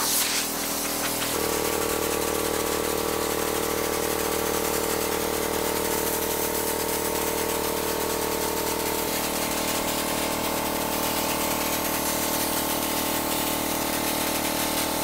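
Air compressor motor running steadily to feed a spray gun, its hum getting louder about a second and a half in and changing tone again about halfway through, under a steady hiss of air.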